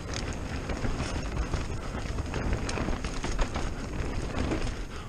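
Mountain bike rolling fast down a dirt forest trail: a steady rough rumble of tyres on soil and roots and wind on the camera microphone, with frequent small rattles and knocks from the bike over the bumps.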